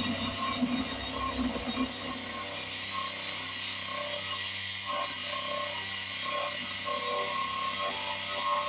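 500-watt DC spindle motor of a home-built micro mill running with an end mill taking a shallow cut, about five thousandths of an inch, across an aluminium block: a steady high whine with irregular chattering from the cut.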